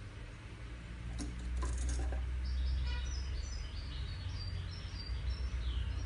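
European goldfinch singing a quick run of short high notes that starts about halfway through and ends on a falling note, over a steady low hum. A few clicks come before the song.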